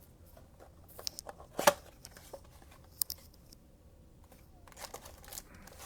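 A cardboard trading-card blaster box being handled and opened by hand: scattered short clicks and taps, the loudest about a second and a half in, with a small cluster near the end.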